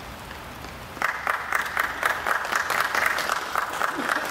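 Spectator applause breaking out suddenly about a second in, a dense run of hand claps.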